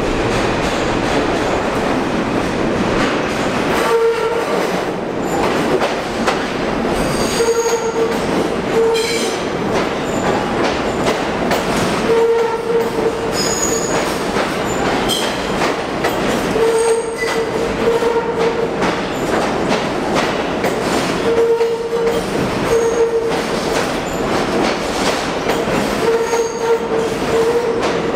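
Pullman Standard R46 subway cars running into an underground station and along the platform: a steady, loud rumble of wheels on rail, with a squeal that comes and goes every few seconds.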